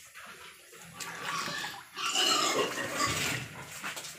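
A pig squealing, loudest a couple of seconds in.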